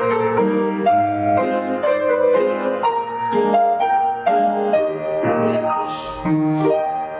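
Piano music: a melody over chords, note following note at a steady pace, played as accompaniment for a dance exercise.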